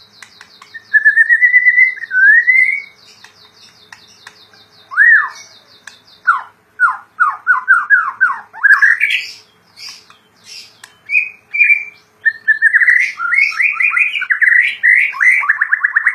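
White-rumped shama (murai batu) singing loudly in varied phrases: clear sliding whistles, runs of quick falling notes, and a fast trill near the end. A faint, high, rapid ticking runs under the first five seconds.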